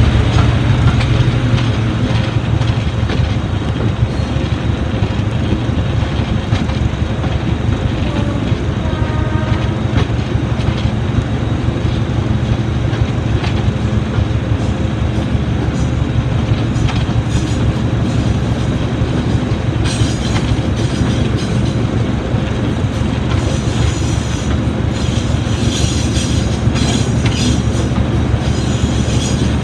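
Diesel locomotive running along the line, heard close from the side: a steady, loud low engine drone with the rumble of wheels on the rails. From about twenty seconds in, high-pitched wheel squeal joins in on the curve.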